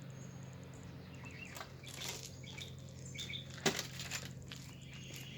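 Birds chirping faintly, with a single sharp knock a little under four seconds in, over a steady low hum.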